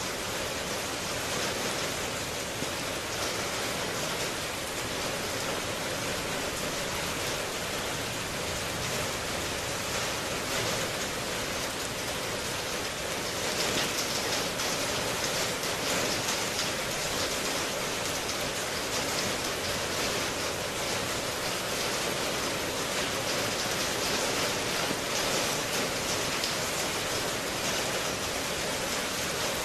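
Heavy rain falling steadily, a dense even hiss of many drops, a little louder from about halfway through.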